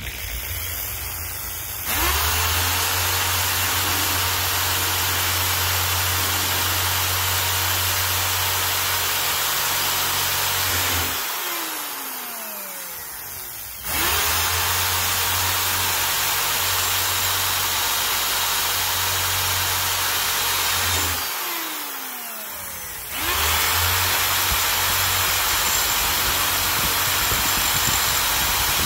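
Electric drill drilling out the steel rivets that hold a metal cam plate to a TR7 wiper motor's plastic gear. The motor spins up and runs steadily, then winds down with a falling pitch twice as the bit moves to the next rivet, starting up again each time.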